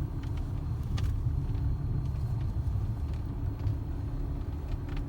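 A Jaguar XJ (X351) roof making a few sharp pops and clicks over a steady low road rumble in the cabin. The loudest pop comes about a second in and another near the end. This is the annoying roof-popping noise the car has developed.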